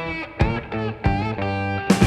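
Background music led by guitar, with plucked notes starting about twice a second.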